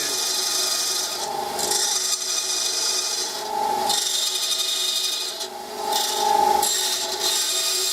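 Bandsaw cutting a run of kerf slots halfway through a thin wooden stick, one short cut after another with brief breaks between them, the blade giving a faint steady whine. The slots are cut a couple of millimetres apart so the stick will bend.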